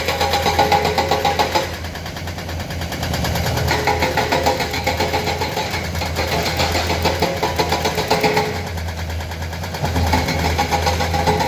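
Komatsu excavator's diesel engine running under load while its hydraulic breaker hammer pounds in rapid bouts. The hammering eases off twice for a second or two, leaving the engine.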